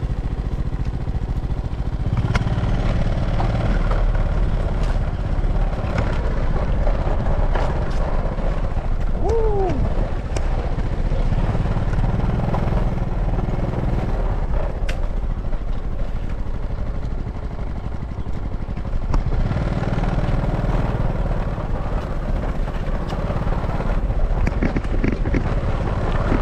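Small scooter-type motorbike's engine running steadily while riding over a rough grass track, swelling and easing in spells, with scattered knocks and rattles from the bumpy ground. A short falling tone sounds once, about nine seconds in.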